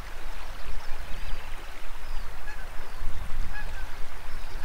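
Wind buffeting the microphone in uneven low gusts, over the steady rush of a stream. A few short bird calls come through, about a second apart, in the second half.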